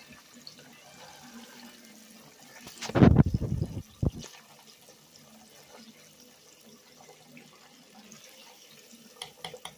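Buttermilk chicken frying in hot vegetable oil, a faint steady sizzle. A loud bump and clatter comes about three seconds in, and a few light clicks near the end.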